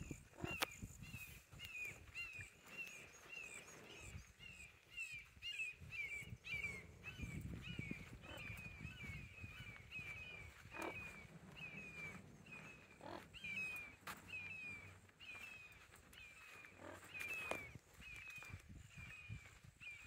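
Red-shouldered hawks calling back and forth, a steady series of short descending calls at about two a second, some overlapping.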